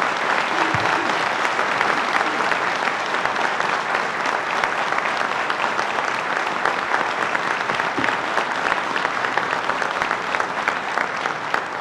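A large audience applauding: dense, steady clapping from many people, beginning to die away at the very end.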